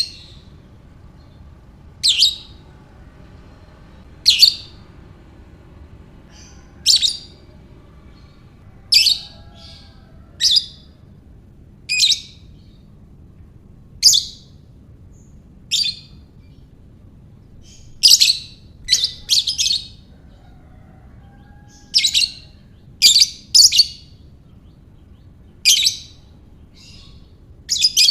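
Lovebird giving short, shrill, high-pitched calls about every two seconds, now and then two or three in quick succession.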